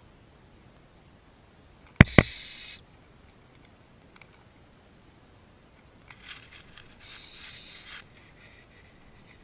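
Little owl chicks close to the microphone: two sharp knocks about two seconds in, then a short hissing call. From about six seconds in comes a longer raspy hissing with scuffling as the owlets jostle and flap.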